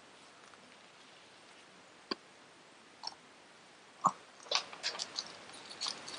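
Mostly quiet room with a few sparse clicks and light knocks from hands handling craft materials on a table: a sharp click about two seconds in, a louder knock about four seconds in, then a cluster of small clicks and rustles near the end.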